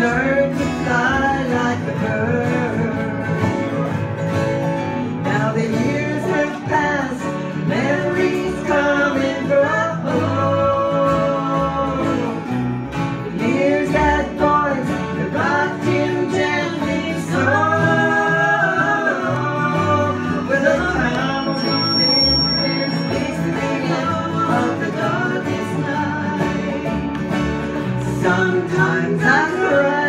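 Small acoustic band playing a country-style song: several acoustic guitars and a banjo strumming, with a melody line held over them.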